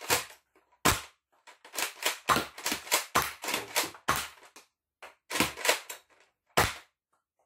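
Zuru X-Shot Regenerator toy foam-dart blaster being worked and fired: a string of sharp plastic clacks and snaps, densest through the middle.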